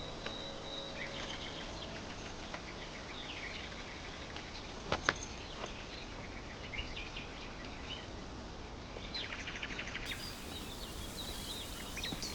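Birds chirping now and then over a steady background hiss, with a rapid trill near the end. Two sharp clicks about five seconds in are the loudest sounds.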